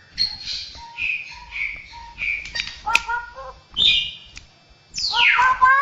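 Straw-headed bulbul (cucak rowo) singing a varied run of short whistled notes and mimicked calls, with a sharp click about three seconds in and a loud downward-sweeping call near the end.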